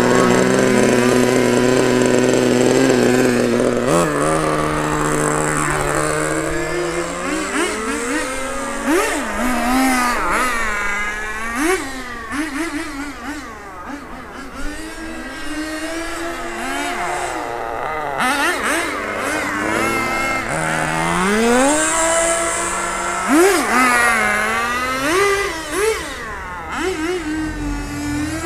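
Small nitro-methanol engine of a radio-controlled 4WD car running at a high steady pitch, then revving up and dropping back again and again as the throttle is worked while the car is driven.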